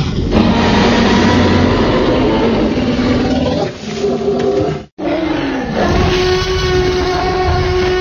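Tyrannosaurus rex roar sound effect, loud: a first long roar of about five seconds, then after a brief break a second roar that falls in pitch and ends in a held tone that fades away.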